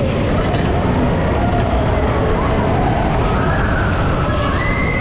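Powered coaster train running along its track: a loud, steady rumble with a wavering high whine over it that climbs in pitch about three and a half seconds in.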